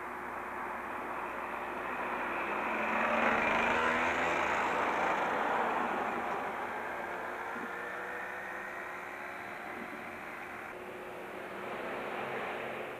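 Electric train running past on the line, its rushing wheel and motor noise swelling to a peak about three seconds in, then slowly fading, over a steady low hum.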